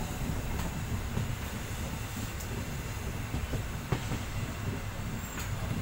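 Passenger train running on the rails, heard from inside the coach at an open window: a steady low rumble of wheels on track, with a few irregular sharp clacks as the wheels cross track joints.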